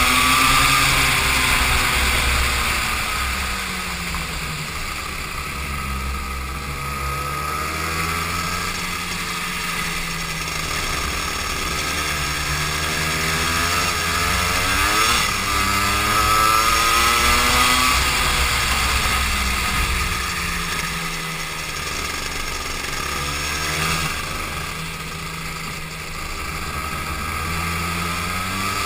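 Go-kart engine heard from the driver's seat, revving up along the straights and dropping in pitch into the corners, several times over.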